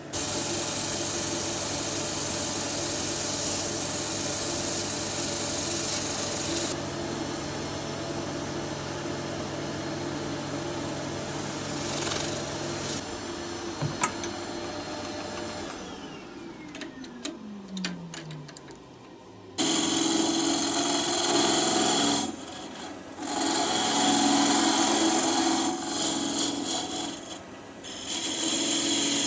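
Wood lathe running while a turning tool cuts into scrap wood. About halfway through the motor winds down with a falling whine, and loud cutting noise starts again suddenly near the two-thirds mark.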